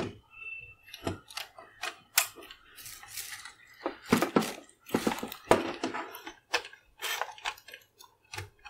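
Irregular clicks, taps and light clatter of cables and plugs being handled and plugged in, as a power lead is connected to a bare NAS board.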